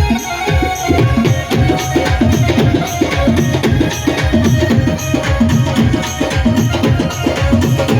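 Music with a fast, dense hand-drum rhythm, the drum strokes coming several times a second.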